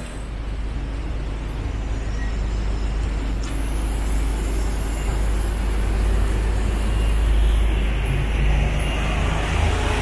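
Toyota GT86's 2.0-litre flat-four engine running on a chassis dynamometer, a loud rushing noise with a deep rumble underneath that builds steadily through the first seven seconds or so and then holds.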